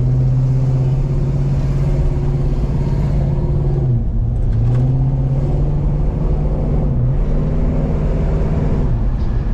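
Box Chevy's engine running while the car is driven, a steady low drone that dips briefly about four seconds in and again near seven seconds.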